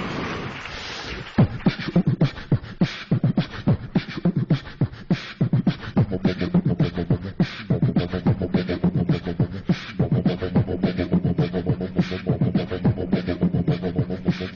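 Vocal beatbox rhythm built up live into a repeating loop, with fast, evenly spaced percussive mouth sounds starting about a second and a half in after a brief wash of noise. About six seconds in, a steady low hummed bass layer and higher held vocal tones join the beat.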